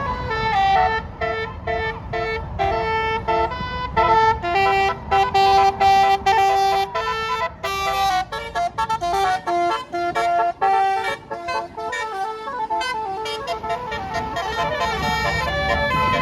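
Bus basuri musical air horn playing a fast tune, short notes stepping up and down in pitch one after another, over a low rumble.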